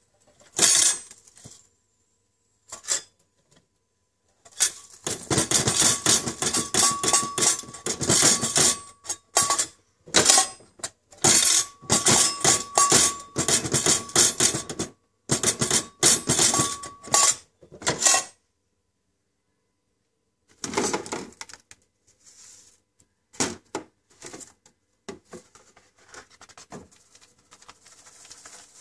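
Great Northern Little Bambino popcorn machine's stainless steel kettle being tipped and rattled by hand, metal clattering with popcorn spilling out and a squeak coming and going. Later, quieter rustling and knocks as the plastic popcorn tray is handled.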